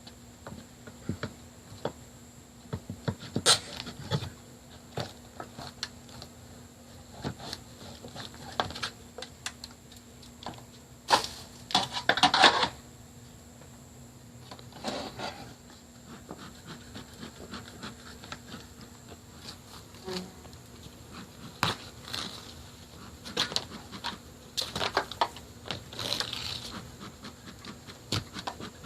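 Honey bees buzzing in a steady low hum, with scattered knocks, taps and scrapes over it; a louder stretch of scraping and knocking comes about a third of the way in.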